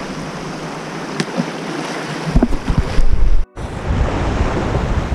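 Waves washing and splashing against the rocks of a jetty, a steady rushing wash. From about halfway through, wind buffets the microphone with a low rumble, and the sound cuts out for an instant a little later.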